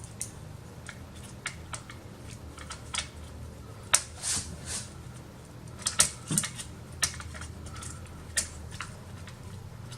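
Irregular light clicks and taps of small plastic and metal computer parts being handled, as an SSD bracket is fitted inside an all-in-one PC, with a faint steady low hum underneath.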